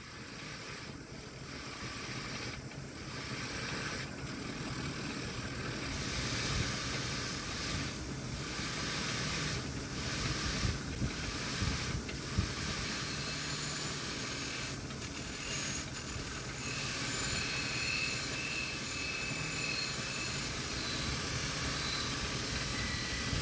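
Motor-driven abrasive wheel spinning while small steel parts, a bevel gear and then a washer, are pressed against it: a steady hissing scrape that dips briefly each time a part comes off the wheel.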